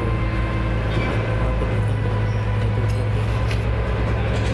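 A steady low mechanical drone, like an engine running, with a faint click about three and a half seconds in.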